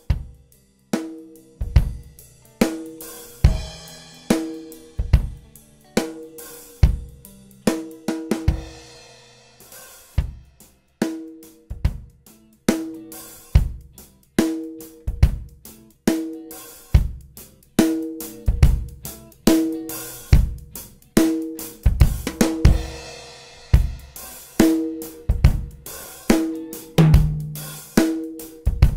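Recorded drum kit playing a steady groove, with kick, snare, hi-hat and cymbals, heard through the OmniTec-67A vintage tube-preamp plugin on the drum bus. The plugin is switched in during the first part, to add tube warmth and saturation.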